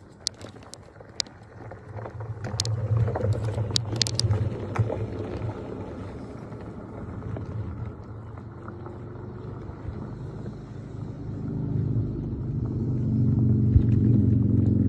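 Handling noise from a phone held against clothing: a low rumble from fabric rubbing over the microphone, with a few sharp clicks and knocks in the first five seconds. The rumble swells louder near the end.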